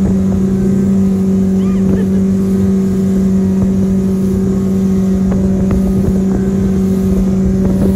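Speedboat engine running at a steady pitch while under way, a constant drone over a rough rush of wind and water.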